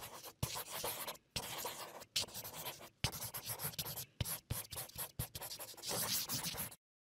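Felt-tip marker drawing on paper: a run of quick scratchy strokes broken by short pauses, cutting off sharply near the end.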